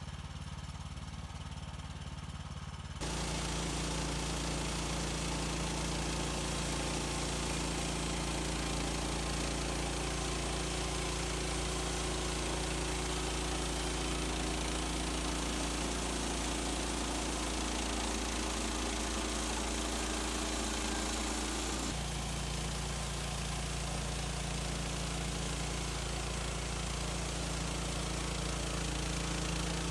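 Portable bandsaw sawmill (HM130 Max) running on its gas engine. About three seconds in the engine speeds up and gets louder, and the new band blade saws steadily along a white pine log. The tone changes about two-thirds of the way through.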